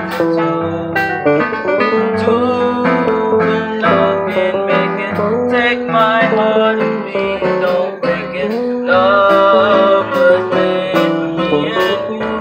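Live band music, an instrumental break with no singing: a lead melody with bent notes over a bass line and chords, with frequent sharp drum and cymbal hits.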